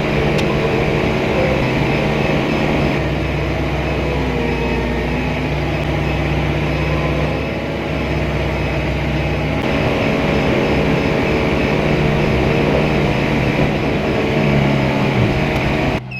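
Off-road vehicle's engine running with a steady drone, dipping briefly about halfway through.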